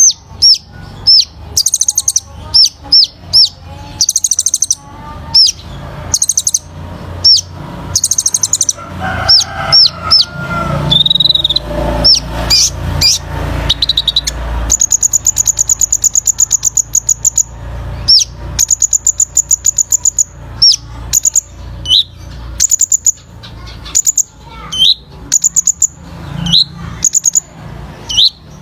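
Sunbird (the 'kolibri ninja' of Indonesian bird-keepers) singing: sharp high chirps mixed with long, very rapid trills. The fast trills are the 'tembakan' bursts that keepers play to train other birds.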